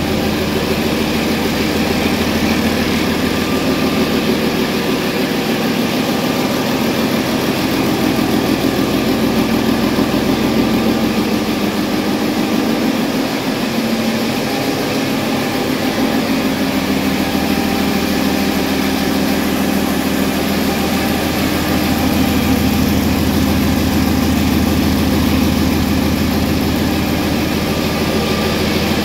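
Paccar MX13 inline-six diesel engine idling steadily on a test stand during a test run.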